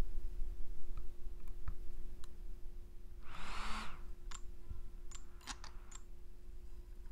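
DJI Mavic Air 2 drone being switched on: faint clicks of its power button, then about three seconds in a short rising startup chime, followed by a few sharp ticks.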